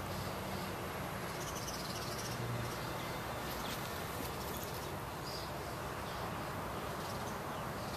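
Steady background hiss with a few faint, high chirps now and then, like insects.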